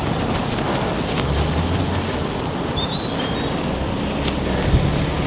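Wind rushing over the microphone of a moving bicycle rider, a steady noise over a low road and traffic rumble.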